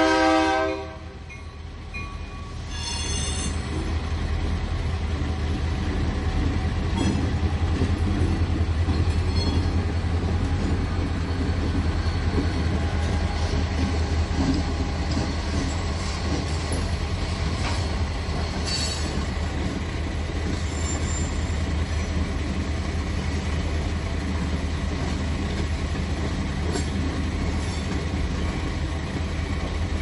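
Freight train passing: its horn sounds and cuts off about a second in, then a steady low rumble of the cars rolling by, with a brief high wheel squeal about three seconds in and scattered clicks from the wheels on the rails.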